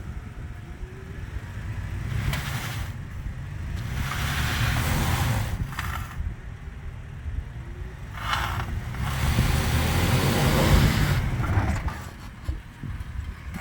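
Toyota 4Runner TRD Off-Road engine running under throttle as it crawls an off-road obstacle, swelling louder twice, with rushes of hiss over the top.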